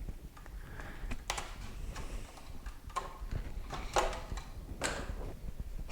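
Parts of a disassembled coffee maker being handled, with scattered small clicks and a few short scraping rustles about once a second.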